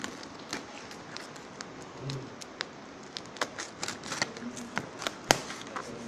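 Plastic film and packing tape on a courier pouch crackling under handling hands: a scattered run of short, sharp crackles and clicks, the sharpest about five seconds in.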